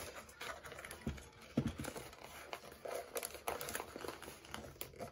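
Paper label stock rustling and crinkling as it is handled and fed into a thermal label printer, with a few light knocks from the printer's plastic housing.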